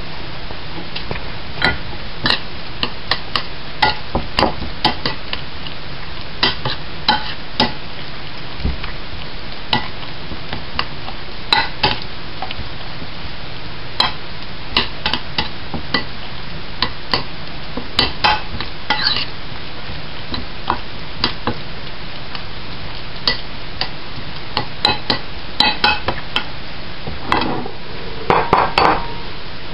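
Metal spoon stirring raw minced meat in a ceramic bowl: irregular clinks and scrapes of the spoon against the bowl over a steady hiss, with a quicker run of them near the end.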